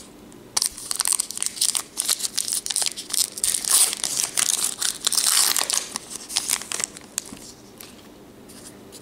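Baseball card pack wrapper being torn open and crumpled by hand, a crackly crinkling that starts about half a second in and dies down after about seven seconds.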